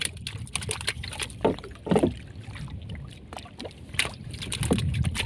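Water sloshing against the side of a small fishing boat, with scattered knocks and clicks as a longline is hauled in by hand and a hooked fish is brought over the gunwale. A low steady rumble runs underneath.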